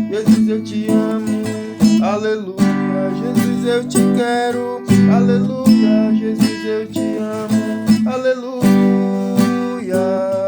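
Acoustic guitar (violão) strumming chords in an instrumental passage of a gospel song, with no singing.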